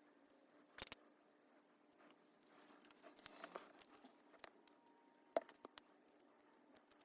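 Faint clicks and light scraping of cardboard jigsaw puzzle pieces and small tools being handled while gluing, with one sharper click about five seconds in, over a faint steady hum.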